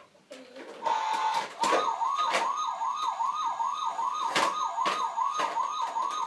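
Battery-powered toy truck's electronic siren: a brief steady tone about a second in, then a fast up-and-down yelp of about three sweeps a second. A few sharp knocks of plastic toys sound over it.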